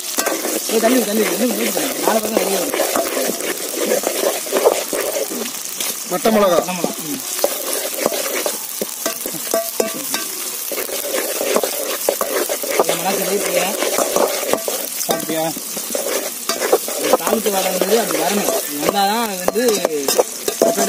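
Onions and dried red chillies sizzling as they fry in hot oil in a metal pot. A perforated metal spoon stirs them, scraping and clicking against the pot.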